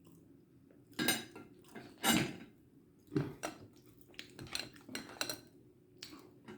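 Cutlery and dishes clinking and knocking in a string of separate strikes, the loudest two in the first couple of seconds.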